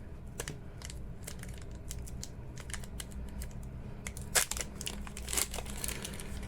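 Crinkling of a foil Pokémon booster-pack wrapper and cards being handled: scattered soft rustles and ticks, with a louder crinkle a little past four seconds in and another burst around five and a half seconds.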